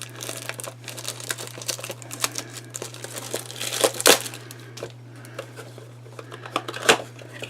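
Packaging of a trading-card blaster box crinkling and tearing as it is worked open by hand, a dense run of sharp crackles with two louder snaps, one about four seconds in and one near the end.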